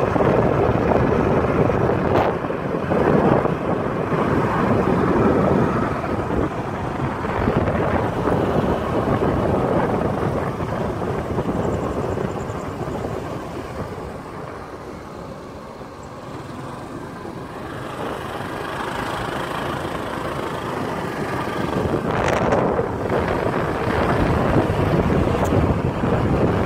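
Outdoor street noise at night: wind on the phone's microphone over the noise of traffic. It dips quieter in the middle and grows louder again near the end.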